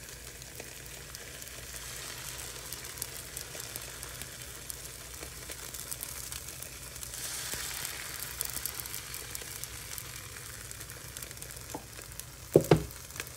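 Thin spinach wrap batter sizzling in oil in a frying pan: a steady hiss that swells for a couple of seconds around the middle. Two sharp knocks near the end.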